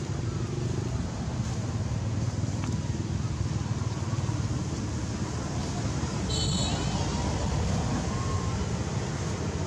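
Steady low rumble of a motor vehicle engine or road traffic, with a brief high chirp about six and a half seconds in.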